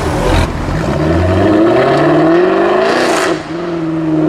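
Jaguar F-Type R's supercharged V8 revving, its pitch climbing steadily for a couple of seconds. Then it comes off the throttle with a short rasp and settles to a steady lower note.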